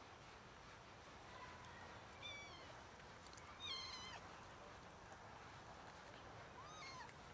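A cat meowing faintly during mating: three short meows, about two seconds in, near four seconds and near the end, the last rising and then falling in pitch.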